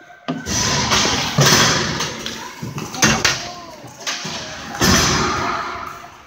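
Ice hockey play in an echoing rink: about four loud thumps and slams, each trailing off, from puck, sticks and players striking the boards and ice.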